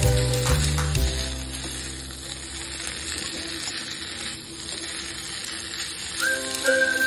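Potato strips and onion sizzling as they stir-fry in a pan, with a spatula stirring and scraping through them. Background music plays for about the first second and comes back near the end with a high melody.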